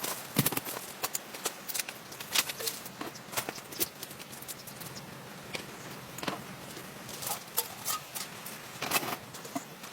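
Scattered raindrops tapping on a camp shelter over a soft steady hiss of rain, the taps irregular, a few each second.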